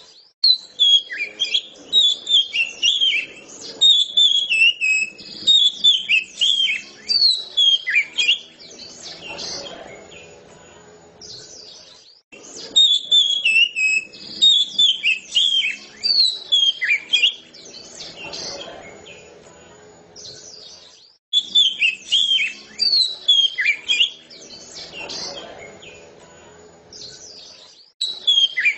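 Oriental magpie-robin (kacer) in full, open song (ngeplong): loud phrases of quick, descending whistled notes. They come in several bouts a few seconds long, separated by short pauses.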